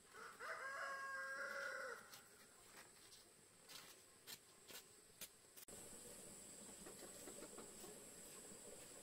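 A rooster crows once, one long call of about two seconds right at the start, followed by a few faint clicks.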